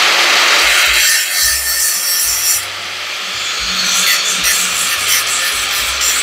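Angle grinder running with its disc ground against the cut joint of a Honda Shadow VT1100's exhaust pipe, a steady, loud, high grinding that eases slightly about halfway through.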